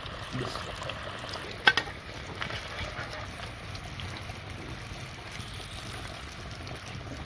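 Hot oil sizzling steadily in a kadhai as fried potato tikkis are lifted out, with one sharp knock about a second and a half in.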